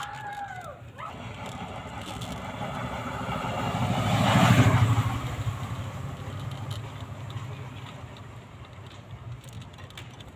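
A motor vehicle passing by, growing louder to a peak about four and a half seconds in, then fading away.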